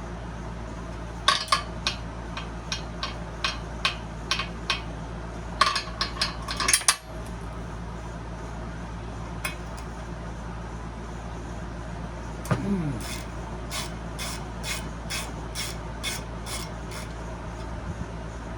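Hand tools working on the metal parts of a radial arm saw being dismantled: runs of sharp metallic clicks about three a second, with a short clatter in between and a single knock that rings down in pitch about twelve seconds in.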